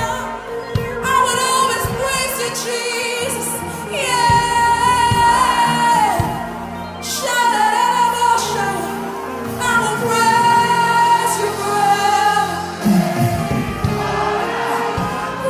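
Live gospel worship music: a choir and singers hold long, wavering notes in phrases of a few seconds over band accompaniment led by a keyboard.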